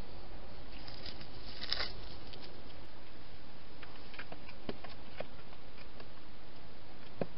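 Steady hiss with small scattered clicks and rustles from a wild hedgehog moving and foraging close by, a short cluster of them about two seconds in.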